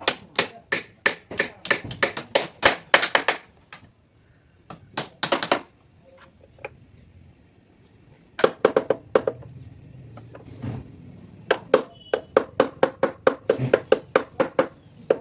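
Rapid hammer strikes on teak wood, about four to five a second, in several runs broken by short pauses.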